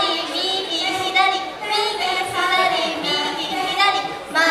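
High young women's voices singing short phrases with no backing track, as they walk the audience through a part of the song.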